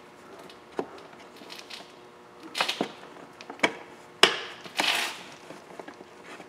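Hands fumbling behind an open glove box to reattach its damper cable: a few sharp plastic clicks and knocks, the loudest a little past four seconds in, with a short rustling scrape just after.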